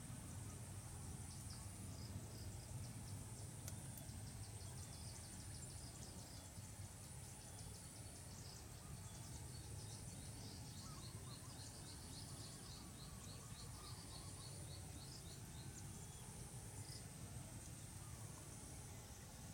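Field ambience: a high, steady insect buzz that stops and starts again every few seconds, with a run of quick chirps about ten seconds in, over a low steady rumble.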